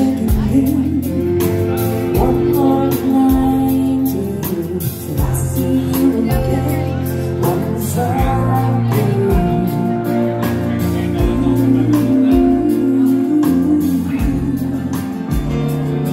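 Live dance band playing a slow ballad: a woman singing lead over guitars, keyboard, bass and drums keeping a slow, steady beat.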